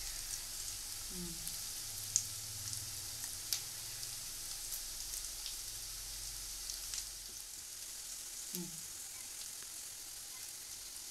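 A steady high hiss with small crackles and ticks scattered through it, a sizzling sound.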